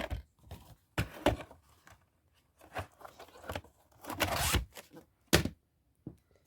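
VHS tapes in their plastic cases being handled: a string of clicks and knocks, with a short rustle about four seconds in.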